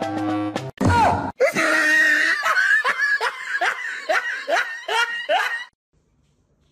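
A person laughing hard in a long run of rhythmic bursts, about two to three a second, with a hiss behind it. The laughter stops about a second before the end.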